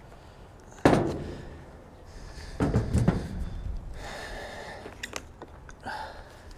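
A heavy thump about a second in, then a quick cluster of several knocks and thuds a couple of seconds later, with a few light clicks after; no saw engine running.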